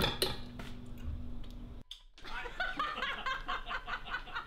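A few light clicks, then after a short break a person's stifled snickering laughter in quick short bursts.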